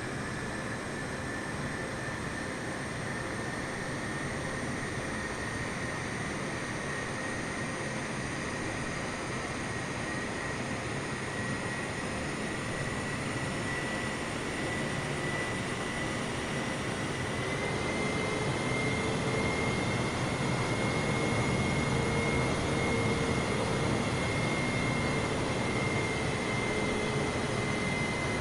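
Airliner jet engines running with a steady rush and a high whine that slowly rises in pitch, growing a little louder about two-thirds of the way through as the engines spool up.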